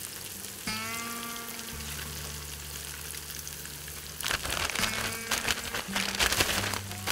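Grayling fillets sizzling as they fry in a pan on a camp stove. From about four seconds in, a plastic bag of fish-fry coating mix crinkles loudly as it is handled and shaken.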